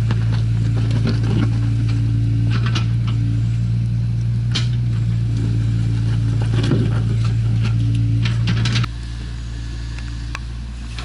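Hydraulic excavator's diesel engine running steadily with a deep hum, with scattered clanks and scraping from the bucket working soil. About nine seconds in the engine sound drops suddenly to a lower level.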